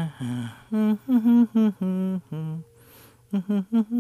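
A person humming a tune in short, separate notes.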